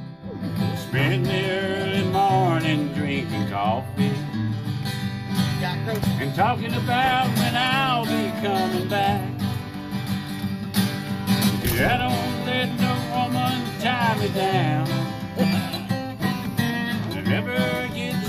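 Acoustic guitars picking a country-bluegrass tune: a strummed rhythm under a wavering, gliding lead melody, which comes in just after a brief lull at the start.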